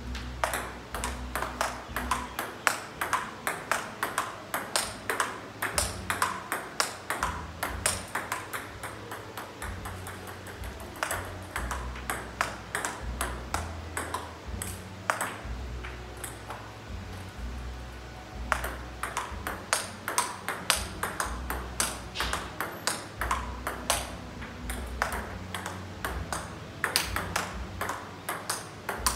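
Table tennis ball clicking off rubber paddles and the table in a fast rally, about two to three hits a second, with a short lull about two-thirds of the way through.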